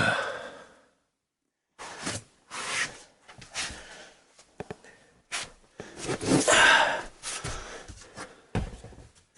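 Someone rummaging and shifting boards and objects while searching for a tool: irregular knocks, scrapes and rustles, starting with a loud burst of noise.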